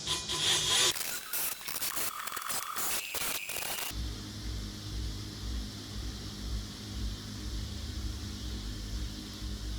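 Wire brush on a Ryobi cordless die grinder scraping against a rusty steel pulley for about four seconds, stopping abruptly. A steady low hum follows.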